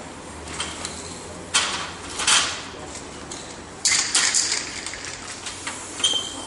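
Aerosol spray-paint can hissing in several short bursts as paint is sprayed onto a wall.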